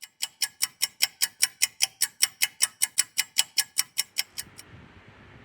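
Rapid, evenly paced ticking, about five ticks a second, which stops about four seconds in and gives way to a faint hiss.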